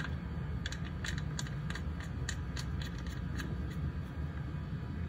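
Light metallic clicks at uneven spacing, a few a second, as the Honda HR-V CVT's check bolt is threaded back into the aluminium transmission case, over a steady low hum.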